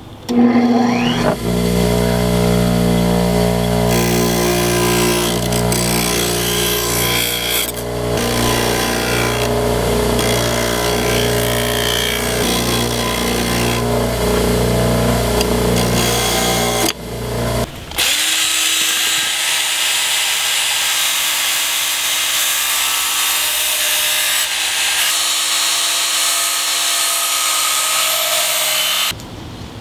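Bench grinder fitted with a wire wheel, spinning up and then scrubbing forge scale off a hardened knife blade, with a steady motor hum under the scraping. About 18 seconds in the sound switches to a Work Sharp Ken Onion belt sharpener running as its abrasive belt grinds the knife's edge. This is a higher, thinner steady whine with hissing grinding that stops just before the end.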